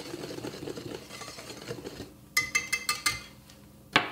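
Wire whisk stirring dry flour and yeast in a glass mixing bowl, a soft steady scraping. A little after two seconds comes a short run of ringing clinks, and a single sharp click follows just before the end.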